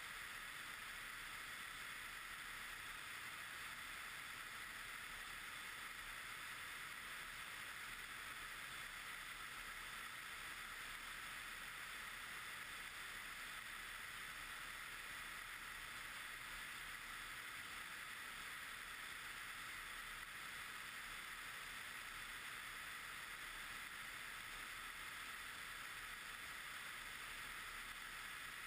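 Steady rushing airflow noise of a Pipistrel Virus Short Wing light aircraft in cruise, heard through a wing-mounted camera as an even hiss that never changes.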